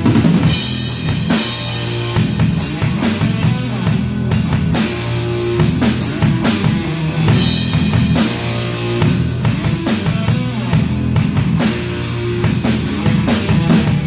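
A rock band playing: a drum kit keeps a steady beat, with about two or three cymbal strokes a second, over bass and guitar.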